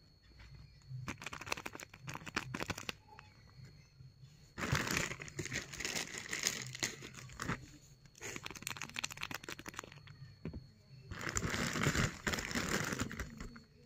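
Crinkling of a tape-covered paper blind bag being handled, in four bursts of crackly rustling with short pauses between.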